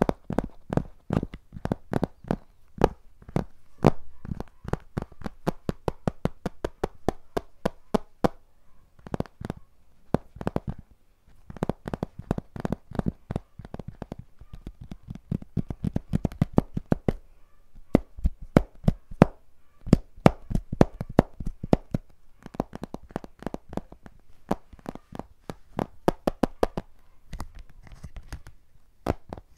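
Fingers tapping on a hard white object held close to a microphone: rapid, sharp taps, several a second, in runs of a few seconds with short pauses between runs.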